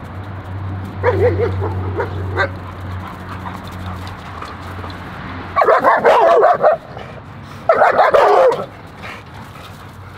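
Dogs barking at each other through a fence: a few short barks about a second in, then two loud volleys of rapid barks, about six and eight seconds in.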